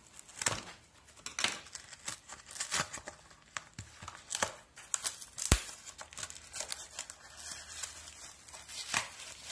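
Sticky packing tape being picked at and torn off a cardboard parcel: irregular crackles and rips with rustling of the packaging, the sharpest snap about halfway through.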